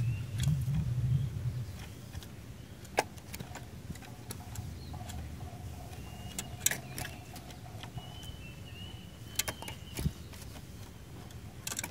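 Cinereous tit giving a few faint, thin, level whistled notes and several sharp clicks during a lull in its song, over a low rumble that fades out in the first two seconds.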